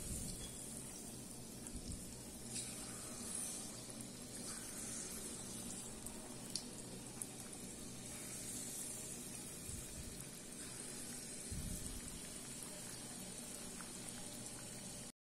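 Faint, steady sizzling and bubbling of semolina batter deep-frying in hot oil in a kadai, with a few small ticks.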